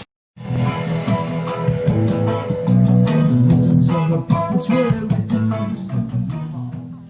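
Background music with guitar and bass guitar, starting just after a brief cut to silence and fading out near the end.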